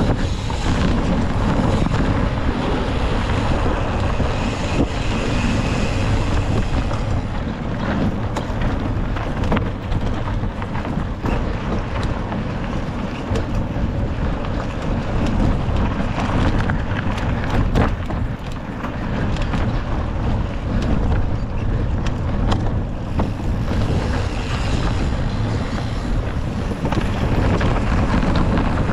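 Wind rushing over the on-board camera microphone of a cross-country mountain bike at race speed, over a steady rumble of tyres on rough trail, with frequent sharp clicks and knocks from the bike.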